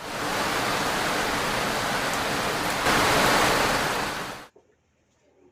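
Steady rushing hiss of heavy rain that cuts off suddenly about four and a half seconds in, leaving near silence.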